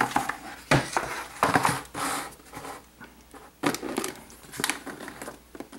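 Handling noise as a computer motherboard is lifted out of its cardboard box tray and set down on the box: a string of scrapes, rustles and light knocks, thinning out toward the end.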